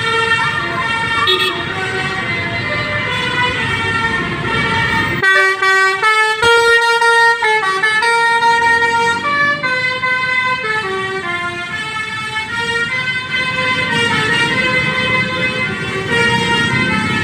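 Indonesian bus 'telolet' musical horn sounding a tune of stepped, held notes over engine and road noise; the rumble drops away for a few seconds about five seconds in, leaving the horn notes alone.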